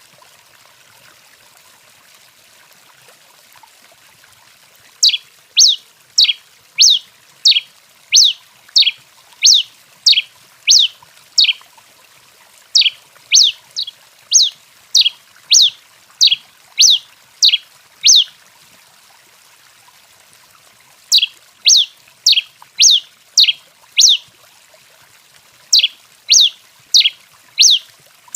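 Tico-tico-rei (pileated finch) calling a long series of high notes that fall quickly in pitch, about one and a half a second, in bouts broken by short pauses, over a faint steady hiss.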